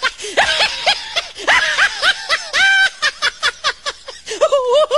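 High-pitched human laughter: a quick, unbroken run of short laugh pulses that rise and fall in pitch.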